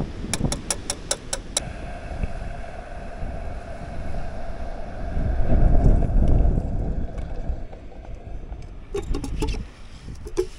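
A metal spoon clinks rapidly against a Stanley stainless steel pot while stirring, about eight quick clinks in the first second and a half. Wind rumbles on the microphone throughout, with a strong gust near the middle, and a few light clicks near the end.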